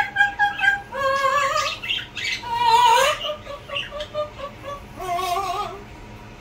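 Two pet parrots singing a tune together, badly off-key: a run of warbling held notes that slide up and down, a quick string of short notes in the middle, then another held note near the end. The singing echoes in a small bathroom.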